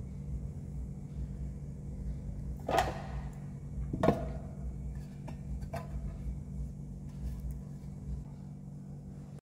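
A metal loaf pan knocks twice against the work surface as it is handled, once near three seconds in and again about a second later, each with a brief metallic ring, over a steady low hum.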